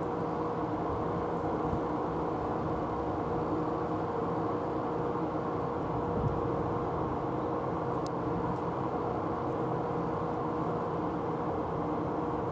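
Steady background hum and rumble with constant low tones, and a faint click about eight seconds in.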